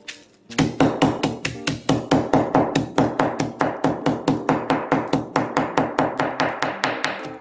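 Meat tenderizer mallet pounding dark cookies to crumbs inside a plastic zip-top bag on a stone countertop, in rapid, even blows about five a second that stop shortly before the end.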